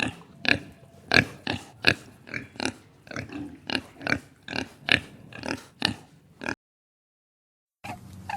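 A pig oinking: a rapid run of short, sharp oinks, roughly two a second, that cuts off abruptly about six and a half seconds in.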